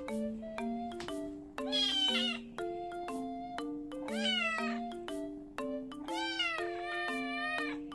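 A kitten meowing three times, the last call the longest, over background music with a repeating melody of short notes.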